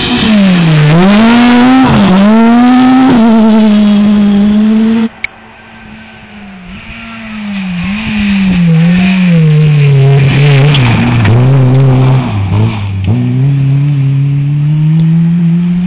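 Rally car engines at full throttle: the engine note climbs and drops with each gear change as one car passes close. About five seconds in the sound cuts abruptly, and a second rally car is heard approaching, its note rising and dropping through several quick gear changes as it gets louder.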